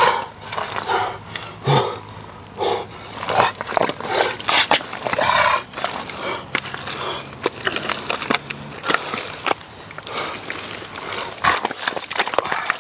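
Bare hands digging and scooping in thick wet mud, making irregular squelches and sloshes as handfuls are pulled up and slapped aside.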